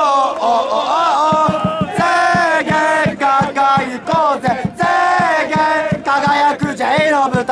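Football supporters singing a victory chant together in the stand. A steady beat, about four to the second, keeps time from about a second in.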